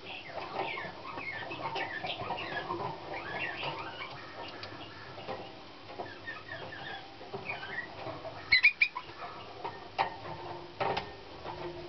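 Young canary singing a run of varied short chirps and gliding notes, with a loud, sharp burst of notes about two-thirds of the way through. A few sharp clicks near the end come as it hops between perches.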